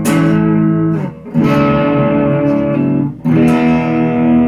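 Chapman ML3 Traditional electric guitar on its neck single-coil pickup, played through a Peavey Delta Blues 210 amp: chords strummed and left to ring, struck three times about a second and a half to two seconds apart.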